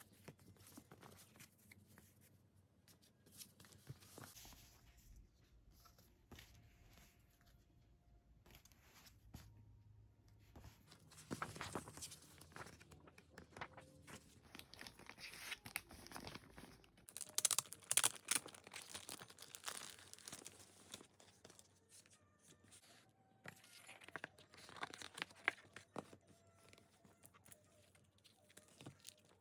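Album packaging being unwrapped and handled by hand: faint, irregular crinkling and tearing of wrapping, with a busier cluster of louder crackles a little past halfway.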